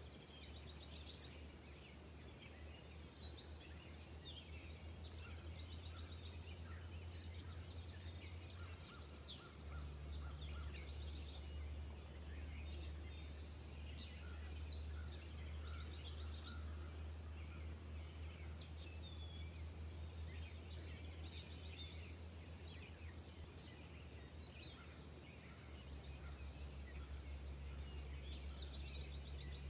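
Faint birdsong: several small birds chirping and trilling on and off, over a steady low rumble.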